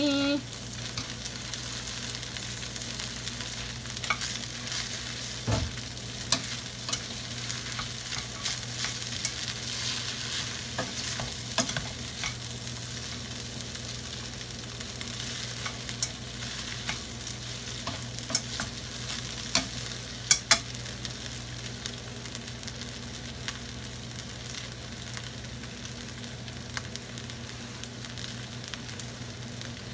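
Glass noodles and vegetables sizzling in a stainless steel skillet as they are stir-fried, with scattered clicks and scrapes of the spatula and chopsticks against the pan, the loudest a quick pair of knocks about 20 seconds in. A steady low hum runs underneath.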